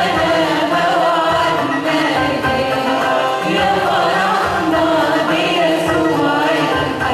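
A church choir singing an Arabic Christian hymn, a continuous flow of sung voices.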